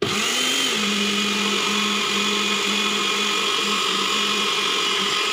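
Personal bullet-style blender switched on by pressing the cup down onto its base, its motor blending basil pesto. It starts abruptly, comes up to speed within the first second, then runs at a steady high speed.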